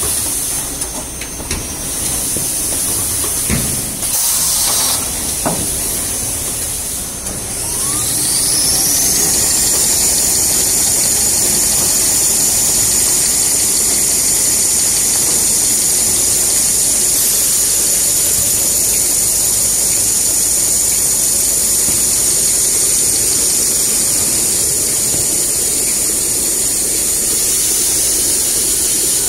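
Jumbo-roll toilet paper production line running, with a few clicks and a short hiss in the first seconds. About eight seconds in, a whine rises in pitch as the machine spins up, then holds steady over a loud hiss.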